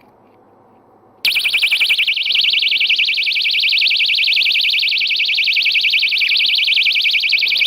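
Personal safety alarm keychain sounding from inside a trouser pocket: its loud, high-pitched siren switches on abruptly about a second in and keeps up a rapid warble.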